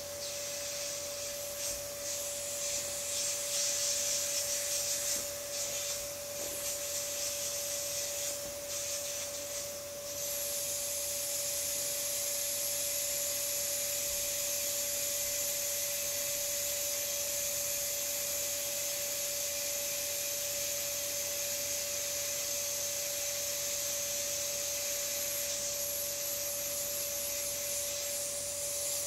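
Air hissing out of an inflatable vinyl swan pool float through its open plug as it deflates. For about the first ten seconds the hiss is uneven, with rubbing of the vinyl, then it settles into a steady high hiss. A steady tone runs under it throughout.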